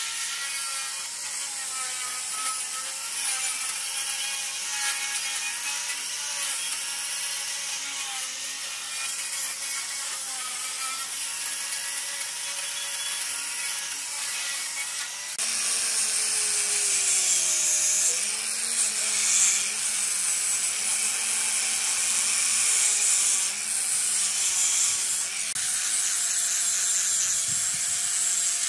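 Electric angle grinder with an abrasive disc grinding rust off steel, its motor whine dipping and rising as the disc is pressed into the metal, over a hiss from the disc on the surface. About halfway through the sound jumps louder and brighter as a grinder with a flap disc works a metal machine part.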